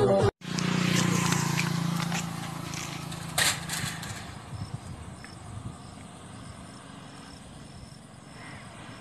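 Music cuts off abruptly, then a motorcycle engine runs and fades away over the first few seconds, with a sharp click about three and a half seconds in. After that comes a quieter outdoor background with an insect chirping in a high, steady pulse about twice a second.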